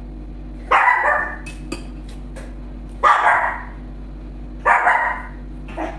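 Dog barking three times, a couple of seconds apart, with a softer bark near the end.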